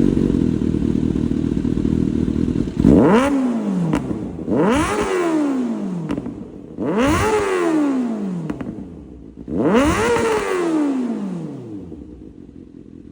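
Kawasaki ZX6R inline-four breathing through an SC-Project aftermarket exhaust, running steadily, then blipped four times. Each rev rises sharply and falls back slowly.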